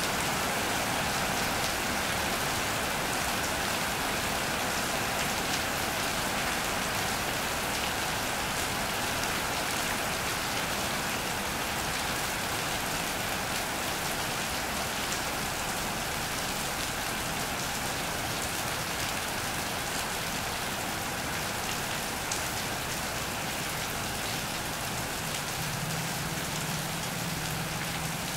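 Steady rain falling on an iron roof and wet ground, an even continuous patter. A low hum joins near the end.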